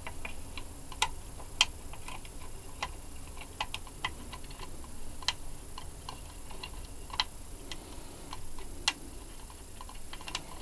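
Irregular small clicks and taps of a screwdriver and a screw against an oscilloscope's metal chassis, as the screw is worked toward its hole and refitted.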